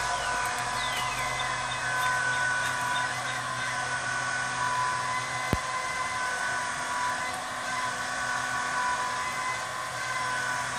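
Homemade electric drive on a Hill PCP high-pressure hand pump running: twin 12-volt motors whine steadily through a chain-and-sprocket reduction while the crank arm strokes the pump. A single sharp click comes about five and a half seconds in.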